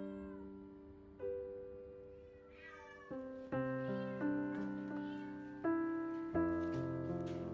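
A cat meowing a few times over gentle piano music.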